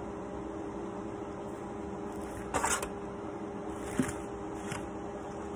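Plastic tray from a Foley catheter kit being pulled out of its cardboard box: a short scraping rustle about two and a half seconds in, then a sharp click about a second later, over a steady low hum.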